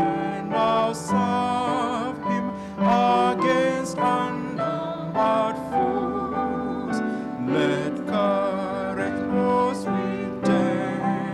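A woman and a man singing a hymn together into microphones, their held notes wavering with vibrato, over instrumental accompaniment.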